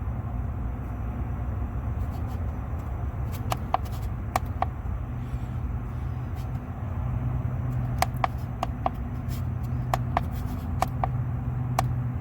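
Lennox package rooftop unit running with its power back on: a steady low hum that gets louder about seven seconds in, with scattered sharp clicks and taps throughout.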